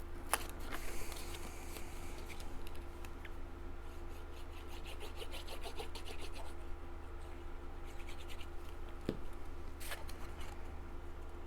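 Cardstock and paper being handled and rubbed on a craft table: scratching and rasping strokes, with a quick run of them midway, a few light taps, and a soft knock near the end.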